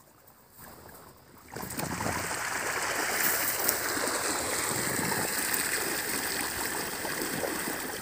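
Water running steadily out of a drain between paddy fields, which is being opened to drain the field. The flow starts about a second and a half in.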